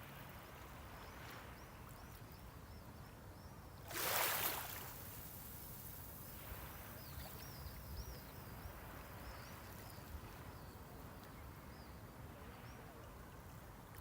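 Small sea wave breaking on the shore about four seconds in, with fainter washes of the swash and a steady low surf rumble. Faint, high bird chirps come in short runs through it.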